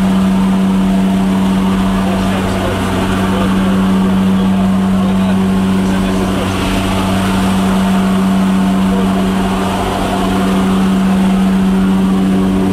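Engine and propeller drone of a jump plane heard inside its cabin in flight: a loud, unbroken low hum with a strong steady tone above it.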